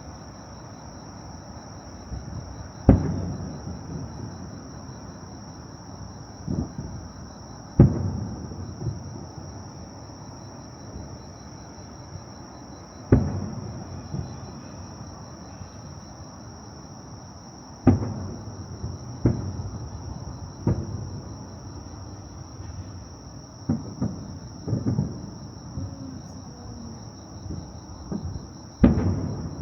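Fireworks shells bursting: about ten sharp bangs a few seconds apart, each followed by a low rolling rumble, coming closer together in the second half.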